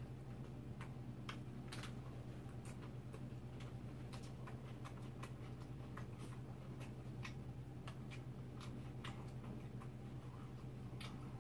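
Faint, light clicks at irregular spacing, a few a second, from chopsticks and crunchy chewing at a meal table, over a steady low hum.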